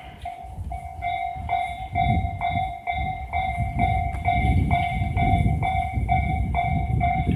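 Japanese level-crossing warning bell ringing in a steady rhythm, a little over two strikes a second. A Tobu Tojo Line train passes through the crossing, its wheels rumbling and clattering on the rails, louder from about a second and a half in.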